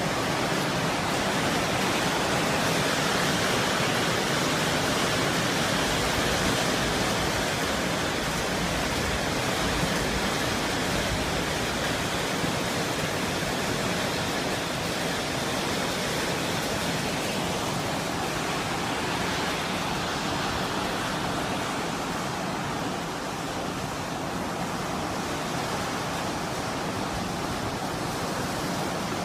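Heavy downpour of rain and hail in a summer thunderstorm, a dense steady hiss that eases slightly in the second half.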